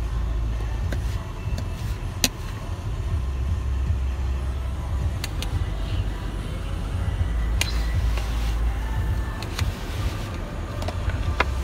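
Snow brush and ice scraper sweeping and scraping snow off car windows, heard from inside the car, with several sharp knocks of the scraper against the glass. A steady low rumble runs underneath.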